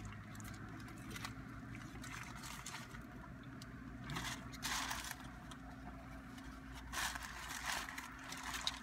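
Steady low hum of the idling car inside its cabin, with a few short rustles of a paper taco wrapper.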